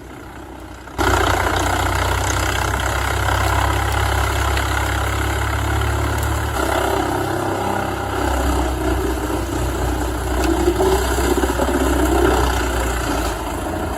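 Large wood chipper powered by a 550 horsepower Scania diesel engine, running loud and steady with a deep engine drone, starting about a second in.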